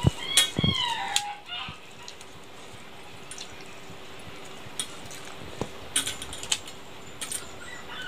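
A short animal call with a falling pitch in the first second, then scattered light clicks and taps of fingers mixing rice on a steel plate while eating by hand.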